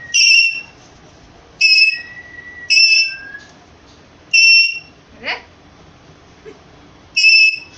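Rose-ringed parakeet (Indian ring-necked parrot) whistling: five loud, short, high whistles of about half a second each, spaced one to a few seconds apart, with a single sweeping call between the fourth and fifth.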